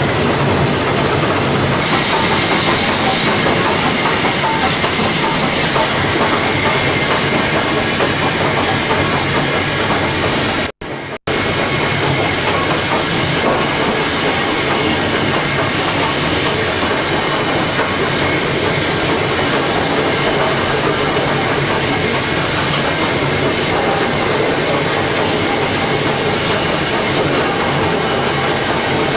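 BR Standard Class 2 2-6-0 steam locomotive 78022 on the move, heard from its footplate: a loud, steady mix of steam hiss and wheels clattering over the rail joints. The sound cuts out briefly about eleven seconds in.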